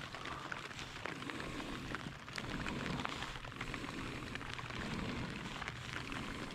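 Rain falling, a steady hiss dotted with many small ticks of drops striking nearby surfaces.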